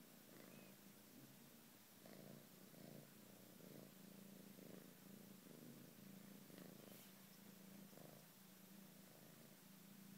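British shorthair kitten purring quietly close up: a low steady rumble that swells with each breath, a little over once a second.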